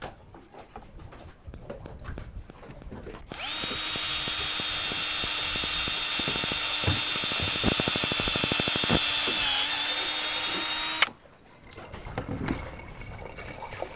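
Cordless drill boring into a green coconut: it starts about three seconds in, runs steadily for about eight seconds, with its pitch dipping slightly near the end, then stops abruptly. Afterwards, coconut water trickles out of the drilled hole into a glass.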